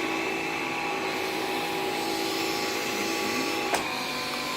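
Bissell AirRam cordless vacuum cleaner running with a steady motor whine, with a single sharp click about three and a half seconds in.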